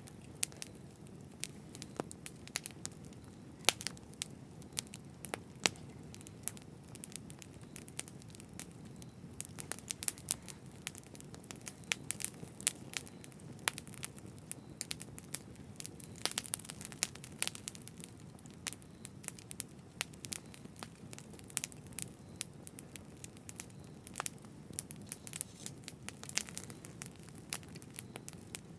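Campfire burning: a steady low rush of flames with frequent irregular sharp crackles and pops from the burning wood.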